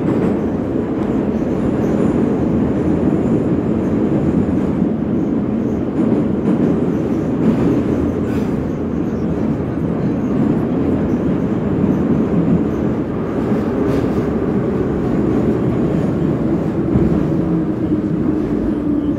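Metro train running through the tunnel, heard from inside a crowded car: a loud, steady rumble of wheels on rails and car body. A faint whine comes in over the last few seconds.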